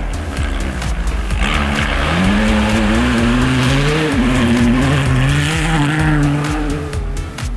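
Rally-raid competition car at full throttle: the engine revs up, drops briefly about four seconds in as it shifts gear, revs up again and then fades away near the end.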